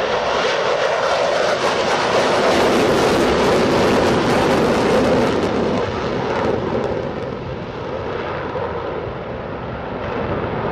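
Jet aircraft flying overhead, its engine noise a broad, steady rush that is strongest in the first half and slowly fades away after about six seconds.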